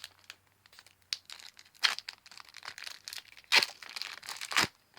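Foil wrapper of a Pokémon trading card booster pack crinkling and tearing as it is opened by hand: irregular rustles with a few louder crackles, the loudest about three and a half seconds in.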